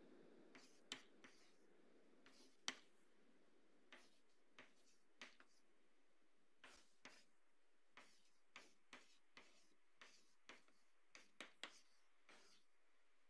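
Chalk tapping against a blackboard while writing: a string of irregular sharp taps, one or two a second, with the two loudest about one and three seconds in.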